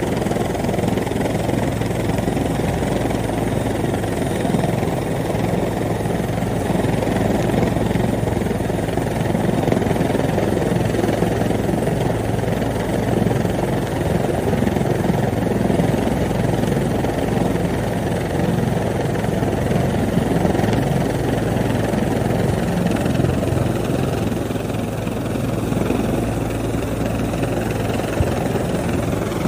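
Rescue helicopter hovering close overhead: a steady, loud drone of rotor and engine.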